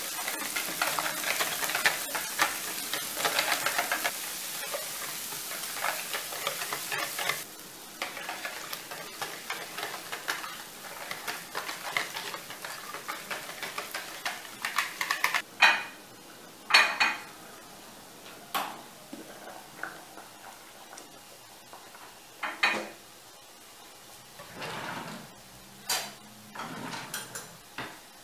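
Wire whisk beating eggs in a large bowl, a rapid clicking and scraping, over chopped leeks sizzling in a frying pan. The sizzle drops away abruptly about a quarter of the way in. The whisking goes on to about halfway, and the second half holds only a few separate sharp knocks and clacks of utensils.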